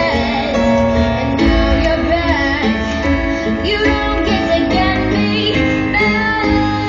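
Music: a song with a high singing voice over guitar and bass.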